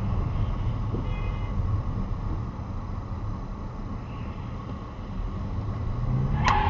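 A car driving in traffic, heard from inside the cabin: a steady low rumble of engine and road noise, with the engine note rising near the end. A sharp click comes just before the end.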